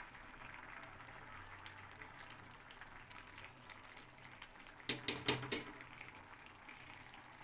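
Thick khichdi of rice and moong dal simmering in a metal pan, bubbling softly while a spoon stirs ghee through it. About five seconds in, a quick run of four sharp clicks as the spoon knocks against the pan.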